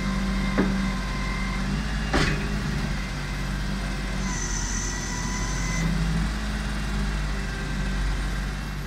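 Side-loading garbage truck's diesel engine running steadily, with a low hum and a couple of sharp knocks in the first two seconds. A brief high whine joins it about halfway through.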